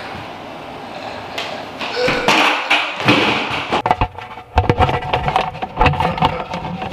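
Plastic food storage pail being opened and the sealed plastic bag inside handled: rustling plastic for the first few seconds, then a quick run of knocks and clicks.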